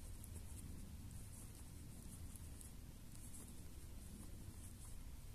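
Faint rustling and light scratching of cotton yarn being drawn through crocheted fabric with a crochet hook as single crochet stitches are worked, over a low steady hum.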